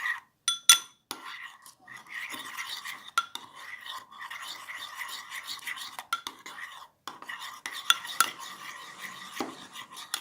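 A spoon stirring a mixture of white glue and shaving foam for slime: steady scraping with scattered clicks of the spoon against the container.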